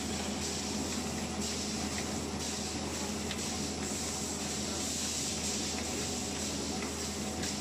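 A 12-mold ice lolly tube blow molding machine running: a steady hiss of air over a low machine hum, with a few faint clicks.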